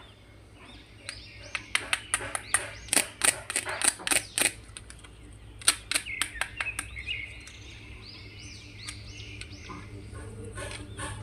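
Plastic clicking and rattling as action figures and their packaging are handled: a quick run of sharp clicks in the first half that thins out later. Repeated short, high, bird-like chirps sound through the second half over a low steady hum.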